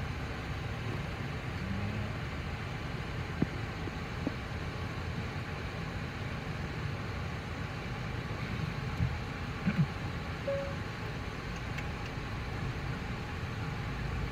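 Steady low rumble and hiss inside a stationary car with its engine idling, broken by a few faint clicks.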